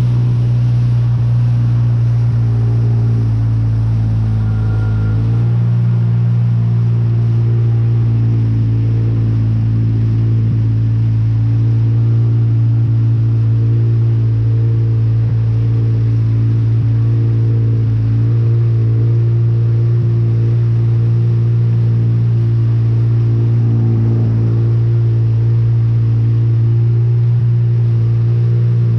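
Steady low drone of a vehicle's engine running, with the pitch pattern shifting about five seconds in.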